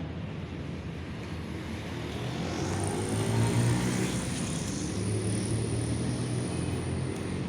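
A steady low motor drone with a thin high whine above it. It grows louder about three seconds in and then holds.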